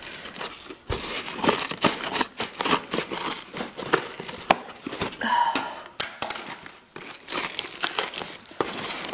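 Corrugated cardboard of a postal parcel box being torn and cut open: irregular tearing, crinkling and crackling of the cardboard and paper wrapping.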